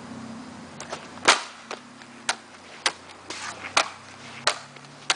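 Skateboard clacking on a hard court surface during freestyle tricks: a run of sharp clacks as the tail and wheels slap down, roughly one every half second to a second, the loudest about a second in.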